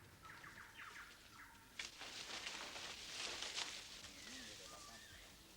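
Faint tropical forest ambience: birds chirping and calling, with a soft hiss setting in about two seconds in.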